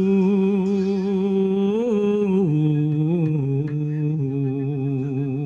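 A singer holding long, slightly wavering notes of a Javanese song, the pitch stepping down about halfway through, over a thin steady high accompanying tone.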